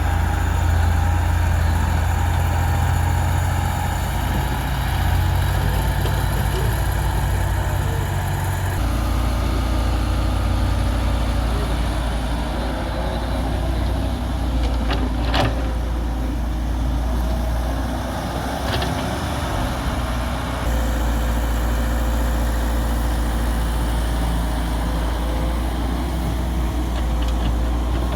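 Heavy excavator engine running steadily while it works, its note shifting about nine seconds and again about twenty-one seconds in, with two sharp metallic clanks near the middle.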